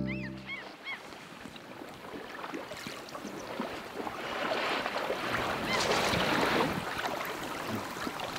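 Water sloshing and splashing as a brown bear wades through a shallow river, louder between about four and seven seconds in, with a few bird calls above it. The last notes of the intro music fade out in the first second.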